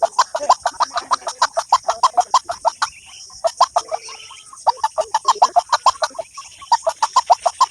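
A bird call played through a mobile phone's speaker as a trapping lure: rapid, loud clucking notes, about six or seven a second, in runs with short breaks between them.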